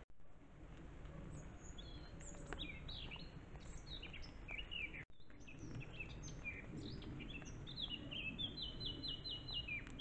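Wild songbirds singing in woodland: quick strings of short, high chirping notes, ending in a fast run of repeated notes near the end, over a low steady background noise.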